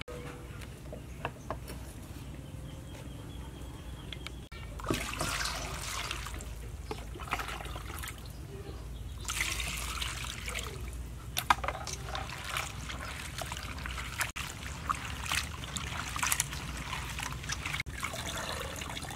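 A few sharp knife cuts through cabbage into a steel bowl, then water poured from a jug over chopped cabbage, splashing and sloshing as the leaves are washed by hand.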